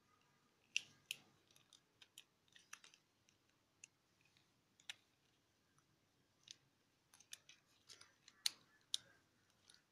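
Small clicks and snaps from the jointed parts of a transforming robot toy as it is folded into a jet plane by hand, coming at irregular intervals with quiet gaps between.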